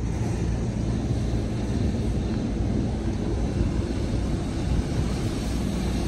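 Wind buffeting the microphone: a steady, churning low rumble.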